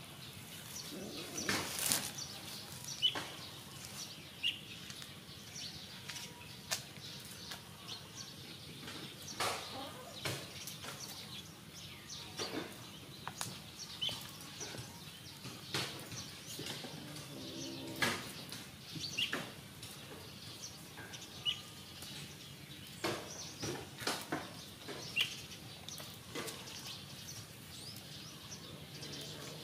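Outdoor background with occasional short, high bird chirps every few seconds, over scattered soft clicks and knocks.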